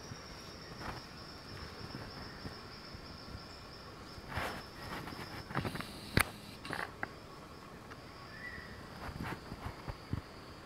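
Steady high-pitched insect trill, with scattered rustles and crackles in dry leaf litter, the loudest a sharp snap about six seconds in.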